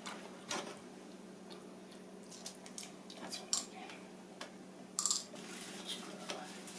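Scattered small clicks and taps of plastic and metal parts as a DJI Phantom 2 Vision+ drone's camera gimbal mount is worked loose by hand and with a small screwdriver; the sharpest click comes about five seconds in. A faint steady low hum runs underneath.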